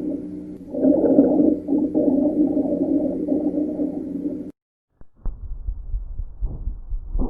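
Stethoscope recording of a continuous musical lung sound, a low-pitched wheeze (rhonchus) made of several steady tones that swells and eases with the breath. It stops abruptly about four and a half seconds in, and after a brief silence another chest recording starts with low dull thuds.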